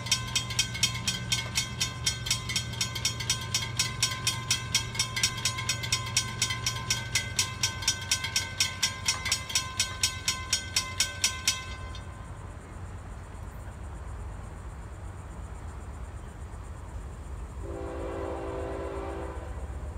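Grade-crossing warning bells ringing in a rapid, even rhythm while the gate arms come down, stopping abruptly about twelve seconds in once the gates are down. Near the end, a short blast of an approaching locomotive's air horn.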